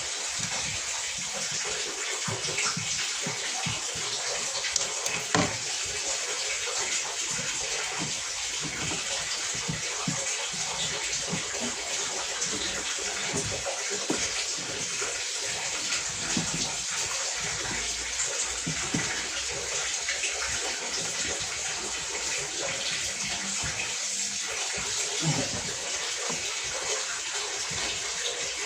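Water running in a steady, splashing stream.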